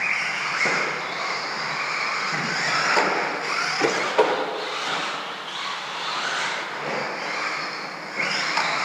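Radio-controlled stadium trucks running laps on a dirt track, their motors whining up and down in pitch with the throttle over the crunch of tyres on dirt. A few sharp knocks about four seconds in, from trucks landing or striking the track edge.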